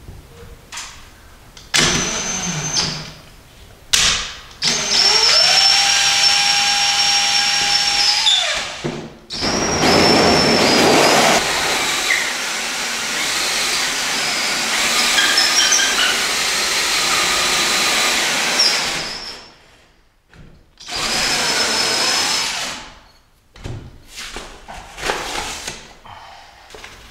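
Cordless drill driving a carbide hole saw through a drywall ceiling. A few short bursts of the motor, then one long run of about fifteen seconds in which the whine rises as it spins up and the saw cuts with a rough grinding, then one more burst of about two seconds.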